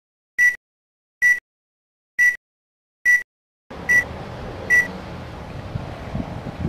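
Film-leader countdown beeps: six short, high-pitched tones just under a second apart. About three and a half seconds in, a low rumble of wind on the microphone comes in under the last two beeps and carries on.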